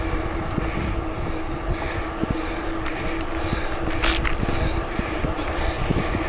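A bicycle rolling along a trail at riding speed: wind buffeting the microphone over tyre noise, with a steady hum underneath. A brief high-pitched tick comes about four seconds in.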